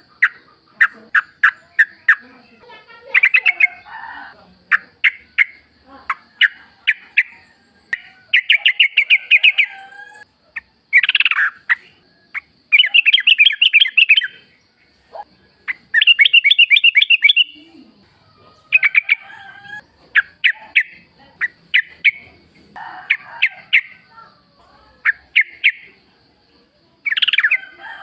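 Yellow-vented bulbul singing: short bursts of quick, bubbly chattering notes repeated every second or two, with a faint steady high-pitched hum in the background.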